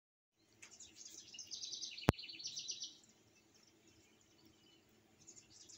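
Small birds chirping in quick runs of short, high notes, busiest in the first three seconds and fading to a few faint calls later. A single sharp click about two seconds in stands out above them.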